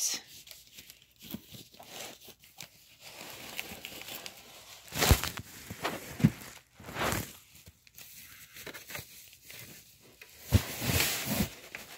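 Plastic wrap and foam packaging rustling and crinkling as they are handled, in irregular bursts, loudest about five seconds in and again near the end.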